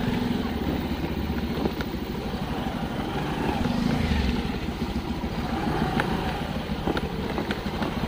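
Motorcycle engine running while riding, with a few sharp clicks scattered through.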